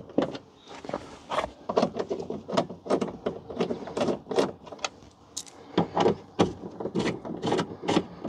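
Irregular clicks, knocks and rattles, a few every second, from a hand tool and the parts of a Hyundai Ioniq's front door inner panel, as bolts are being unscrewed.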